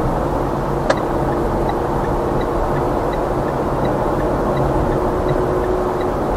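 Car driving with steady road and engine noise, a single click about a second in, then the turn-signal indicator ticking in an even tick-tock, about one and a half cycles a second.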